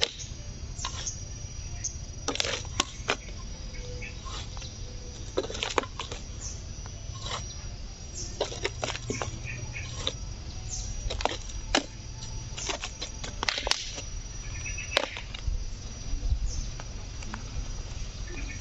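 Small hand trowel scooping and scraping soil and tipping it into a plastic cooking-oil bottle, making irregular scrapes and taps.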